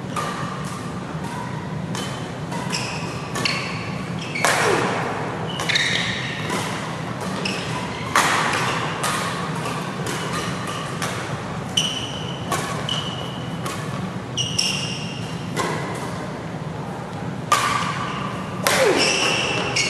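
Badminton doubles rally: sharp racket strikes on the shuttlecock at an irregular pace, with short high squeaks of shoes on the court mat, echoing in a large sports hall over a steady low hum.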